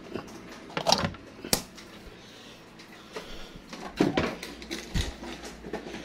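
Scattered clicks and knocks of handling, with one sharp click about one and a half seconds in and dull thumps about four and five seconds in.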